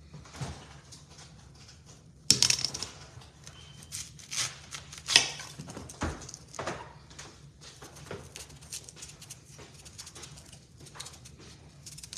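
Kitchen knife cutting and scraping the skin off pieces of African yam, a run of small cuts, scrapes and taps, with two louder knocks about two and five seconds in.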